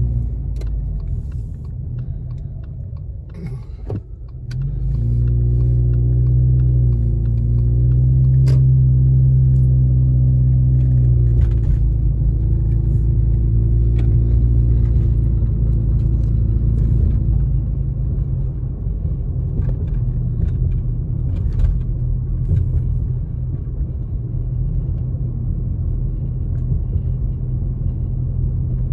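Car engine and tyre rumble heard from inside the moving car. The engine hum dips about three seconds in, then picks up again as the car pulls away and runs steadily. From about halfway on the sound turns to an even road rumble.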